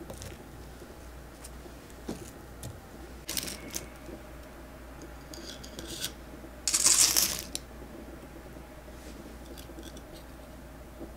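Hands handling a baked chocolate cookie: scattered light clicks, and a short crisp crunch about seven seconds in as the cookie is broken.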